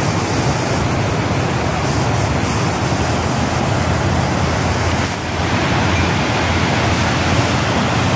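Water pouring over a low weir and churning over rocks below, a loud, steady rush that dips briefly about five seconds in.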